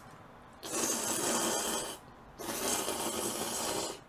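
Two long slurps of noodles sucked in off chopsticks, each lasting over a second, with a brief pause between them.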